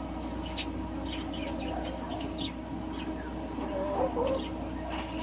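Steady background hum with scattered light clicks and knocks. About four seconds in there is a short, wavering animal call.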